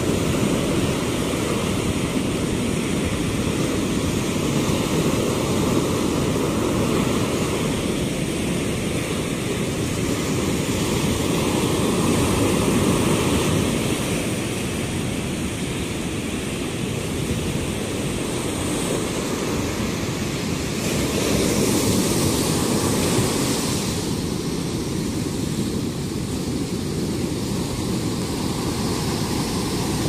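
Ocean surf breaking on a sandy beach: a steady rushing wash of waves that swells louder twice.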